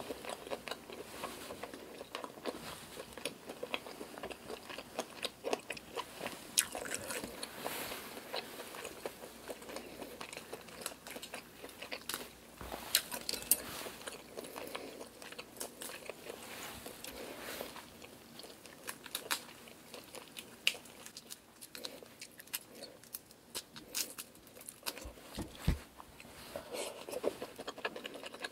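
Close-miked chewing and biting of cooked black tiger shrimp: wet mouth sounds with many small crisp clicks and crunches. About halfway through, a shrimp's shell is pulled and cracked off by hand.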